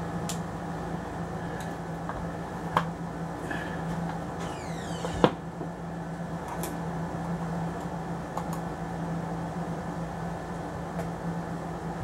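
Screwdriver working a steel scope-ring screw loose: a few light clicks and a short squeak, then one sharp snap about five seconds in, the screw breaking free of its torque. A steady low hum runs underneath.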